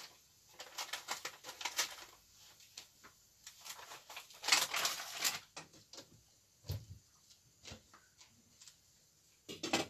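Metal spoon or ladle stirring in a stainless steel pot of soup, in scattered clinks and scrapes against the pot, louder for a moment about halfway, with a few single taps near the end.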